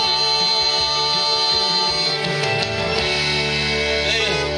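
Instrumental closing bars of a gospel song, with guitar: a held chord that changes about two seconds in, with no singing.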